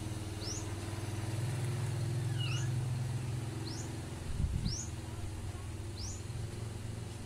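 A motor vehicle's engine runs outside with a steady low hum, growing louder for a couple of seconds and then easing off. A bird gives five short rising chirps, and a brief cluster of low thumps comes about four and a half seconds in.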